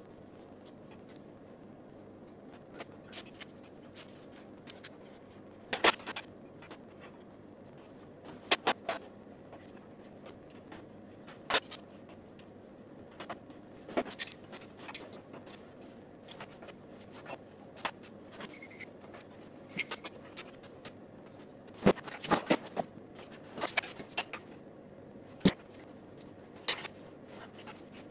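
Metal tubing and clamps being handled and set against a metal-topped workbench: scattered clicks, taps and knocks of metal on metal, with a cluster of sharper knocks near the end, over a faint steady hum.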